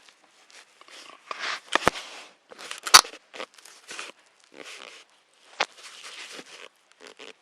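A bear scraping and knocking at a UniFi doorbell camera, right against its microphone: irregular bursts of scratchy crunching, with two sharp knocks, the louder about three seconds in.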